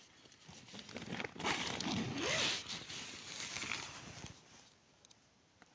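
Tent door zipper being pulled open in a rasping run of several seconds, loudest about two seconds in, before fading out.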